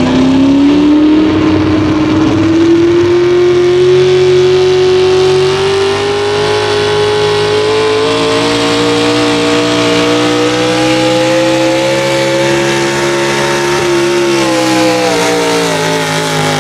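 Pulling truck's engine revving high under load as it drags a weight-transfer sled, its pitch climbing slowly for most of the run, then falling near the end as the pull finishes.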